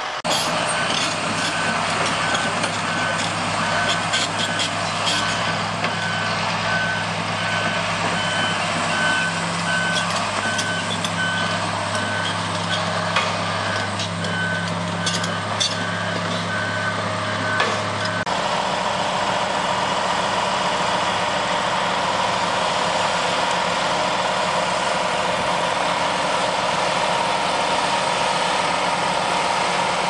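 Diesel-powered crawler sideboom pipelayers and other heavy pipeline machinery running, with a backup alarm beeping at a steady pace and a few knocks of metal for the first eighteen seconds or so. Then the beeping stops and the steady engine noise of the machinery continues.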